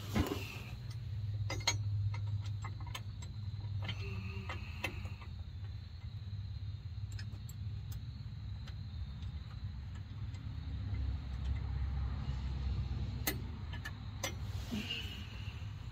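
Scattered metal clicks and taps of a hand wrench working the nuts on a Sumo Springs bottom bracket under a motorhome chassis, over a steady low hum.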